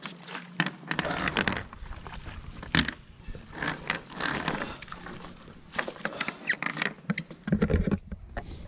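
A cast net holding snook being worked loose on a fiberglass boat deck: irregular slaps, knocks and rustles of mesh, lead weights and fish against the deck, with heavier thumps near the end.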